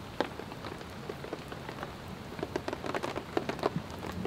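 Mushrooms and onions sizzling in a frying pan over a small wood-burning firebox stove, with a steady hiss and many irregular pops and crackles.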